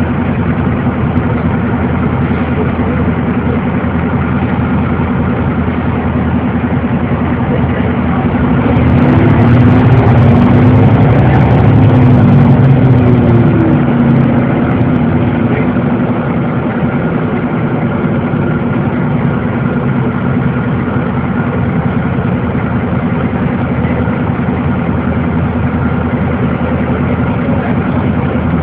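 City bus engine heard from inside the passenger cabin, running as a steady drone. It grows louder for several seconds in the middle, its pitch rising and falling, then settles back.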